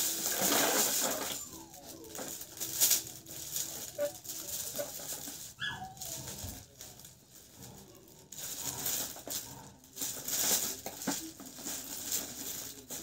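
Crinkly plastic gift-wrap sheet rustling and crackling in irregular bursts as it is handled and folded around a box.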